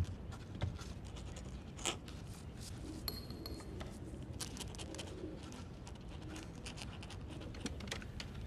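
Faint, sparse scratching and small clicks of a quill pen writing on parchment at a desk, over quiet room tone, with one slightly louder click about two seconds in.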